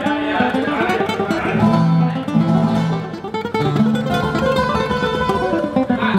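Nylon-string Spanish guitar playing a rapid run of plucked notes and strums over held bass notes.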